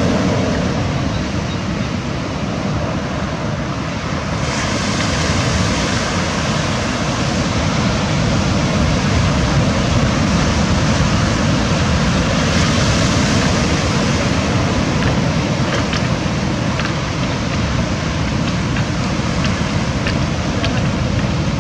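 Sea waves breaking and washing up a pebble beach, a steady rush of surf with wind buffeting the microphone; the surf swells louder a few seconds in and again around the middle.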